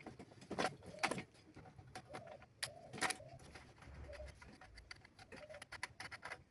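A pigeon cooing faintly and repeatedly, with a few sharp clicks and taps from metal tools on a bicycle headset.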